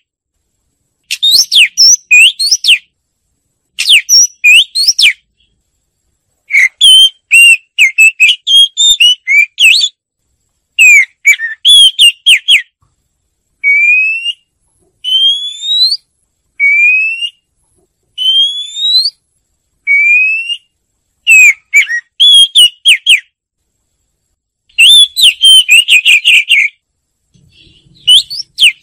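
Oriental magpie-robin singing: loud phrases of quick, varied warbled notes broken by short silences, with a run of single rising whistles in the middle.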